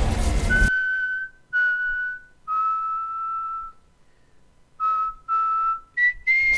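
Background music cuts off suddenly under a second in. A slow whistled melody follows: clear single notes, a long low note, a pause, then two short notes and a jump to higher notes near the end.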